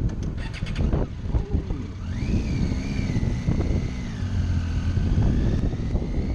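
Motorcycle riding along a road, heard from the rider's camera: engine running under wind noise on the microphone. About two seconds in, a high whine rises and then holds, wavering slightly.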